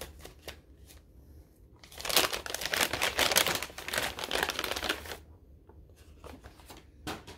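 Wrapping crinkling as a small wrapped advent-calendar bag is opened by hand: a few faint rustles, then about three seconds of loud crinkling starting about two seconds in, and a single sharp click near the end.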